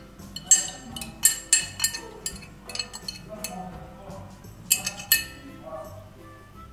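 Irregular sharp clinks of a metal fork tapping and scraping against a glass container and a mixing bowl, as beaten egg is scraped out and worked into pastry dough.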